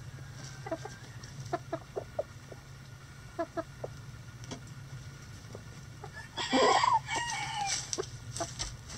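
Chickens clucking in short, scattered calls, then a rooster crows once, loudly, about two-thirds of the way through, the crow ending on a held, slightly falling note.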